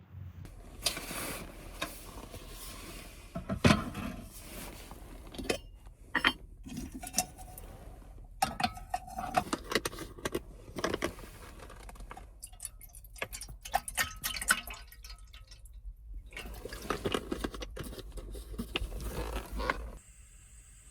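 Irregular clinks, knocks and rustles of small objects being handled, over a steady low hum that stops near the end.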